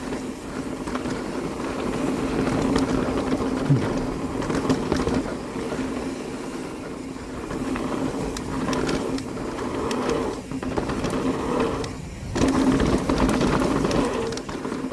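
Mountain bike rolling down a dirt jump trail: tyre and wind rumble with scattered clicks and rattles, over a steady buzz from the rear freehub as the bike coasts. The buzz breaks off briefly twice in the second half.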